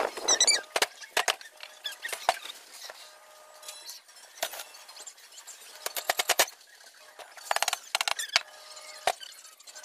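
Aluminum window-frame profiles being handled on a wooden workbench: clusters of sharp clicks and taps, some in quick rattling runs, with gaps between them.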